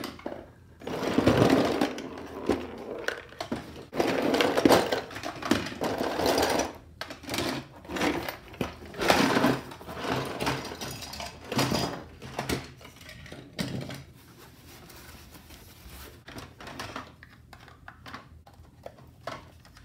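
Loose hard plastic toy parts of a vintage Micronauts Battle Cruiser rattling and knocking together in a cardboard box as the box is handled and moved, with the cardboard scraping. The handling turns quieter for the last several seconds, with only light knocks of plastic pieces.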